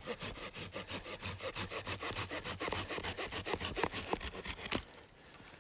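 A small pine stem being sawn through by hand, in quick, even back-and-forth strokes, about eight a second, that stop shortly before the end.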